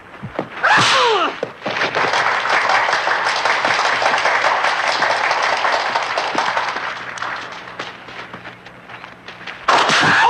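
Fight-scene soundtrack: a sharp yell that falls in pitch about a second in, then a crowd of onlookers applauding and cheering, fading out. A second yell comes near the end.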